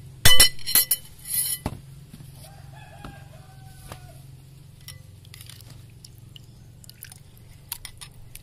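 A metal spoon clinks sharply against a glass bowl several times in the first two seconds, the loudest sounds here, followed by scattered lighter clinks and taps as soft coconut flesh is scooped into a glass. A rooster crows faintly in the background about two and a half seconds in, one wavering call of just over a second.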